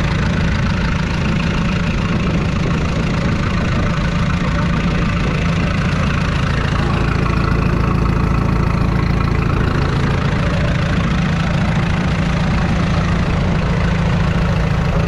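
1949 Allis-Chalmers U tractor's 5.2-litre four-cylinder petrol engine idling steadily.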